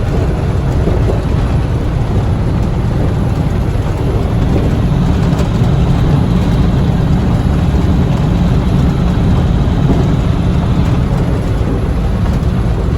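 Steady drone of a tractor-trailer's diesel engine and road noise heard inside the cab while driving.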